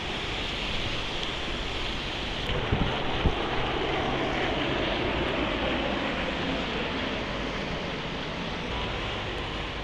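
Steady rushing noise of an e-bike ride in heavy rain: wind buffeting the microphone mixed with rain and wet-road spray, with a couple of dull thumps about three seconds in.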